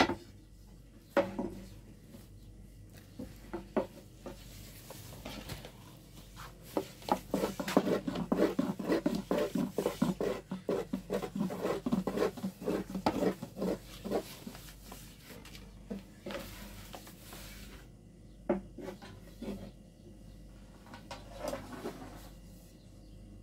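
Long thin wooden rolling pins rolling out flatbread dough on round wooden boards: scattered wooden knocks and rubbing, with a fast run of rhythmic clacking in the middle as the pin is worked back and forth.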